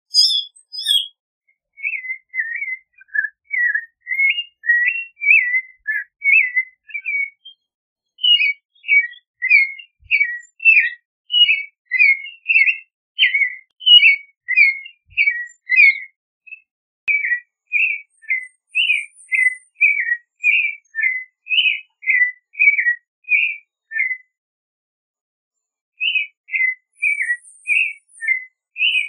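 Clay-colored thrush singing: a long run of short, rich whistled phrases, a few per second, broken by brief pauses about a quarter of the way in and again near the end.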